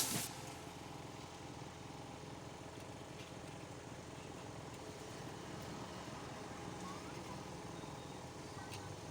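Background music cuts off just after the start, leaving a faint, steady low mechanical hum.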